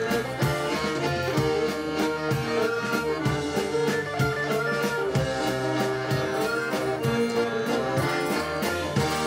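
Live band playing: accordion, electric guitar, double bass and drum kit, with tambourine, over a steady drum beat.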